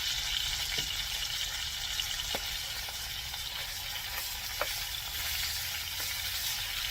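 Dried fish frying in hot oil in a pan, with a steady sizzle and a few faint ticks.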